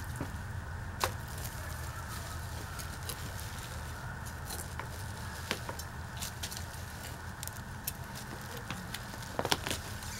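Hand trowel digging into potting soil in a clay flower pot as ginger stalks are pulled and rustled: scattered crackling scrapes and clicks, the sharpest about a second in and near the end, over a steady low rumble.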